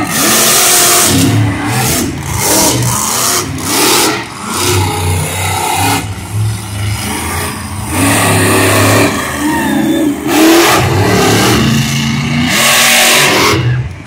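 Monster truck engines revving hard as two trucks race over dirt jumps. The engine note climbs and drops again and again, with brief lulls where the throttle comes off.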